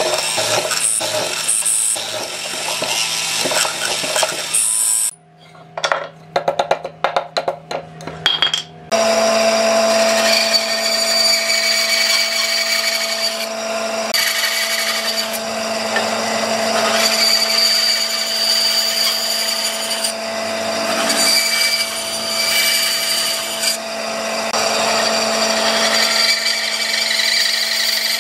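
Hollow-chisel mortiser running and plunging repeatedly into a wooden board for the first few seconds. After a short break filled with a few knocks and clicks, a band saw runs steadily and cuts through wood for the rest of the time.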